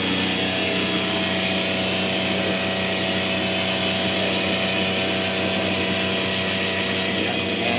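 Electric motor of a cotton candy machine running at a steady speed, spinning the floss head: a constant hum with several steady tones that does not change.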